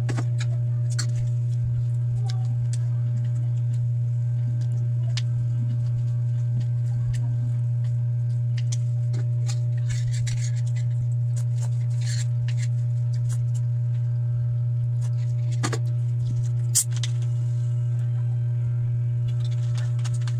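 A loud, steady low hum throughout, with faint clicks of eating utensils against a bowl and a few short eating noises.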